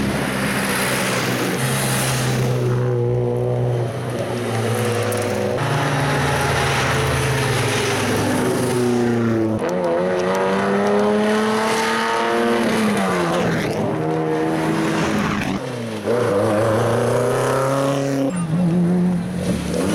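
Hillclimb rally cars' engines revving hard as they climb past one after another, the pitch rising through each gear and dropping at every shift, with a few abrupt jumps from one car to the next. Near the end, a BMW E30's engine is held at high revs as it passes close.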